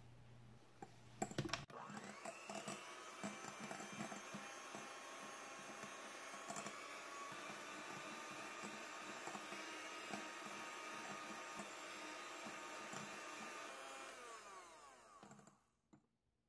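Electric hand mixer whipping egg whites and sugar into a meringue in a glass bowl: the motor spins up about two seconds in after a few clicks, runs steadily, then winds down and stops near the end.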